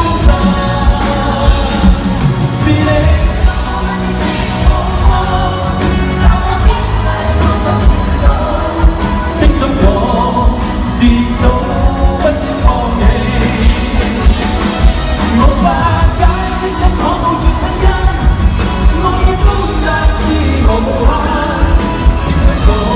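A pop song performed live: a male singer with a full band, driven by a steady beat, heard loud from among the concert audience.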